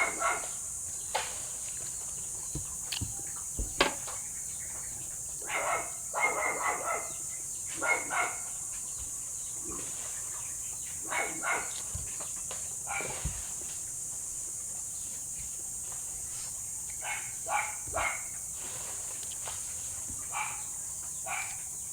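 Eating sounds: chewing and lip smacks on barbecue and rice in short clusters every few seconds, over a steady high insect buzz.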